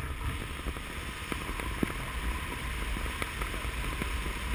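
Wind rushing over a GoPro's microphone in paragliding flight: a steady low rumble with hiss, broken by a few faint sharp clicks, one louder just under two seconds in.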